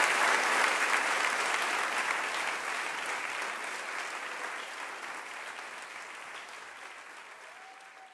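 Theatre audience applauding, a dense crowd of hand claps that fades out gradually.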